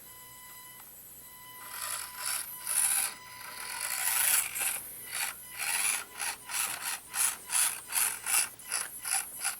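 Axial SCX24 micro crawler's small electric motor and geared drivetrain whirring under throttle as the truck strains at an obstacle. It is quiet for the first second and a half, swells, then surges and fades about three times a second through the second half.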